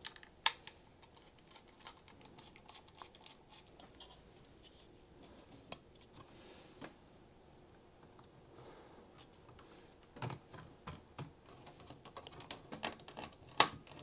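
Scattered small clicks, taps and light scraping from a screwdriver and a 2.5-inch drive in its metal caddy being fitted into an open laptop. The sharpest click comes about half a second in, and the clicks come more often near the end.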